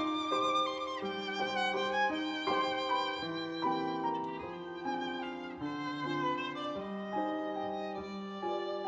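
Background music: a violin playing a melody of held notes, one after another, over lower notes.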